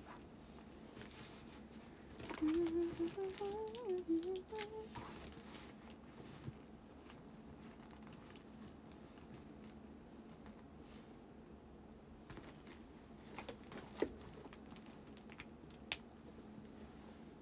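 A woman's voice humming or murmuring a short wavering phrase for about two and a half seconds, about two seconds in; later a few light taps and clicks, the loudest about fourteen seconds in.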